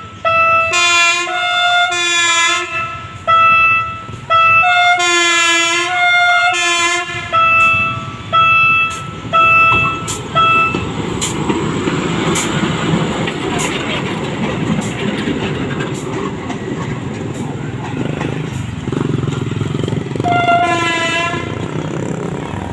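SVI track-inspection locomotive sounding its horn in a long string of short toots as it approaches, some higher and thinner, some lower and fuller. The horn stops about eleven seconds in, and the locomotive's engine and wheels rumble past, with sharp clicks as the wheels cross rail joints. One more horn blast sounds near the end.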